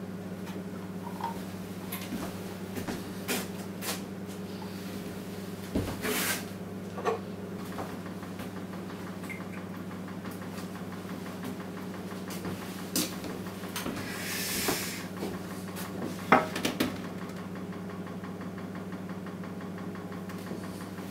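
Steady low electrical hum, with scattered small knocks and clicks and a brief hiss about two-thirds of the way in; the loudest is a sharp knock a little later.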